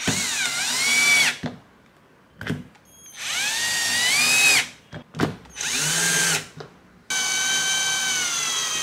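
Cordless drill/driver driving the screws of a plastic junction box's lid: four runs of motor whine, each a second or two long, the pitch bending down and up during a run. Small clicks fall in the gaps between runs.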